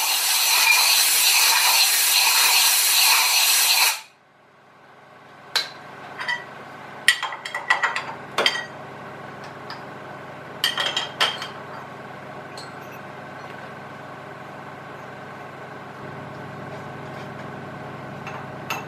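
Compressed air hissing loudly from an air blow gun, clearing swarf from a freshly drilled stud hole in an engine block, then cutting off suddenly about four seconds in. After it, metal tools clink and knock a few times as the drill bit is taken out of the milling machine's collet, over a steady low hum.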